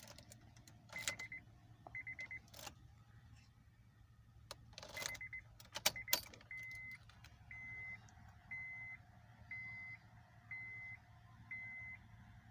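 Car keys jangling and clicking as the key goes into a Honda's ignition and is turned to on, the engine not yet cranked. The dashboard warning chime beeps, a few short trilled beeps at first, then a steady beep about once a second from about six seconds in.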